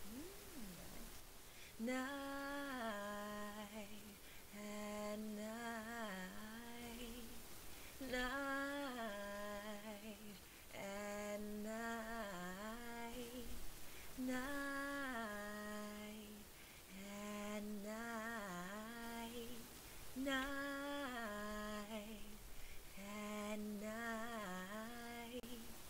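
A woman singing a low background harmony line on the word "night": a two-part phrase of held notes, the second part dipping near its end, sung four times with short pauses between takes.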